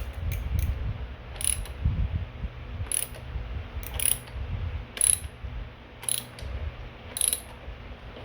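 Ebike chain drivetrain turned by hand on the newly fitted crankset while the chain is shifted onto the middle chainring: the chain runs steadily over the sprockets, with a sharp click about once a second.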